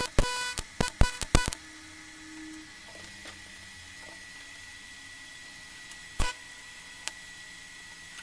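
TIG welding arc on stainless steel bolts, struck in a quick run of short buzzing tacks over the first second and a half, then once more briefly about six seconds in. A faint steady high tone runs between the tacks.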